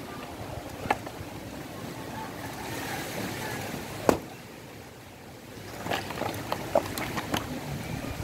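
Axe chopping firewood: a sharp chop about a second in, a louder one about four seconds in, then a run of lighter knocks and clatters of wood near the end, over steady background noise.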